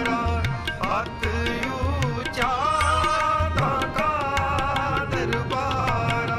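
Devotional music: tabla strokes keep a steady beat under a melody that slides in pitch.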